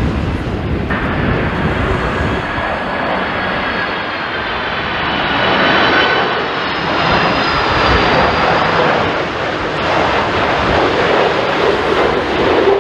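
Jet airliner's engines passing close overhead: a loud rushing roar with a high engine whine over it, swelling and easing, with wind gusting on the microphone.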